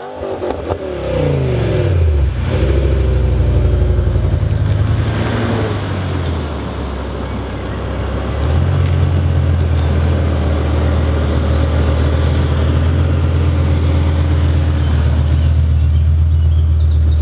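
BMW E60 M5's V10 through an Eisenmann Race aftermarket exhaust, driving by. Its note falls in pitch twice in the first few seconds, then settles at about eight seconds into a steady, deep low-rev sound as the car rolls past close by.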